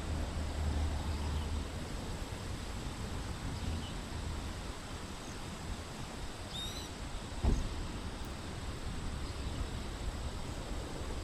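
Outdoor ambience with a steady low hum that fades after about four seconds. A bird gives a short run of high chirps past the middle, followed moments later by a single thump, the loudest sound.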